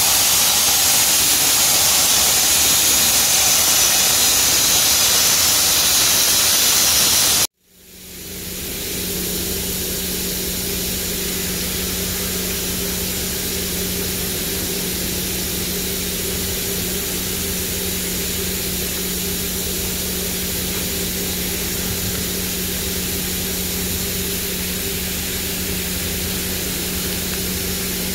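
Sandblasting nozzle blasting abrasive at granite kerbs: a loud steady hiss that cuts off abruptly about seven seconds in. After it, a quieter, steady machine hum with a constant low drone.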